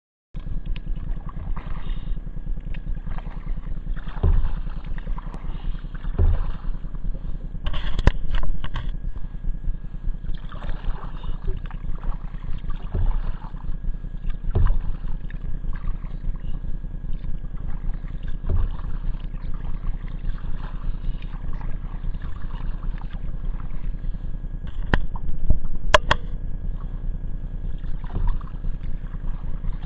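Kayak paddling: a paddle dipping and splashing in the water about every two seconds over a steady low rumble of wind on the microphone, with a few sharp knocks, two close together near the end.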